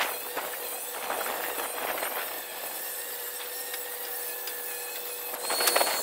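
Electric angle grinder with a diamond cutting disc running with a steady whine while the blade cuts into the edge of a concrete curb, a gritty grinding hiss that swells at the start and again near the end as the disc bites harder.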